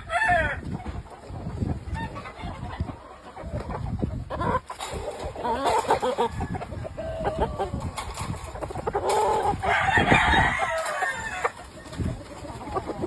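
Gamefowl roosters crowing, several crows one after another with the loudest about ten seconds in, and clucking between them.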